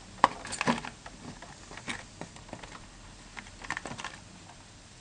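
Light plastic clicks and knocks as a GY6 scooter's plastic cooling-fan shroud is worked loose and pulled off the engine. The knocks come irregularly, the sharpest just after the start, with others near a second in, at about two seconds and just before four seconds.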